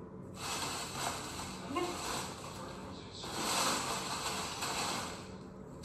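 Crinkly plastic packing rustling as a cat moves around in it, heard through a tablet's speaker, in two long stretches with a short pause between.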